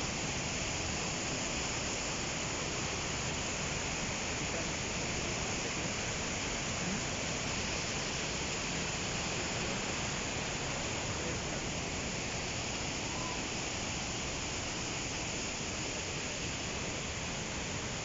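Fast-flowing mountain river rushing through whitewater rapids: a steady, even rush of water with no break.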